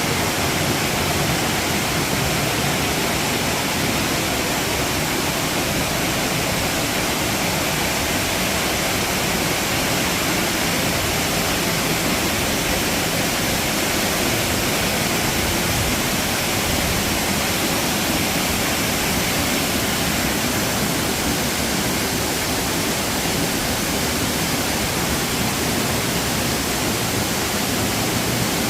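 Dry Falls, a waterfall on the Cullasaja River, pouring steadily with an unbroken, even rushing roar.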